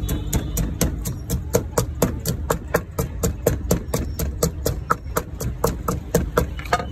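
Wooden pestle pounding chilies in a large papaya-salad mortar, quick regular knocks about four to five a second.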